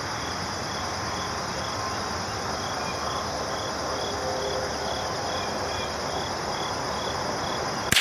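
Crickets chirping steadily, one repeating about twice a second. Just before the end comes a single sharp gunshot, by far the loudest sound, fired at a squirrel in the tree, with its report trailing off.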